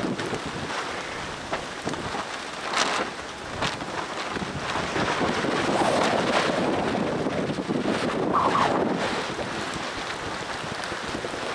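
Gusty wind and rain buffeting the microphone, swelling and easing, with a few sharp snaps in the first few seconds.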